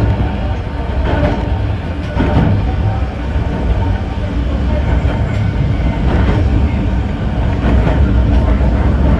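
Narrow-gauge (762 mm) electric train running, heard from inside the cab: a steady low rumble from the wheels and running gear, with a few knocks as the wheels cross rail joints.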